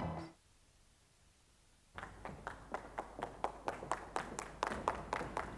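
Music cuts off right at the start, followed by about two seconds of near silence. Then rhythmic hand clapping begins, sharp, even claps at about four to five a second.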